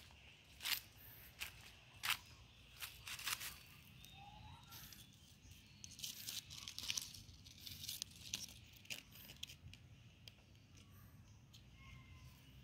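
Footsteps crunching through dry leaf litter, a step a little under every second at first, then a cluster of louder leaf crackles about six to seven seconds in before it quiets down.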